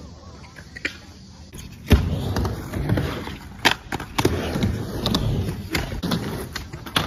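Skateboard riding a quarter-pipe ramp: a loud clack about two seconds in, then the wheels rolling, broken by several sharper clacks of the board and trucks hitting the ramp.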